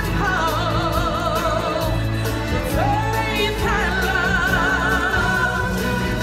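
Live stage-show music with singers holding long wavering notes over a steady bass beat. Midway a voice slides up into a long high held note.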